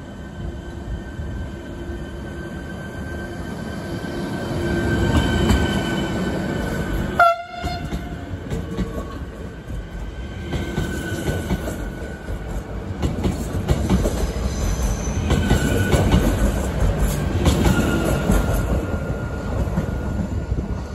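Electric multiple unit passing close by on the station track, with the steady whine of its traction motors over the rumble of wheels on the rails. A short sharp blip comes about seven seconds in.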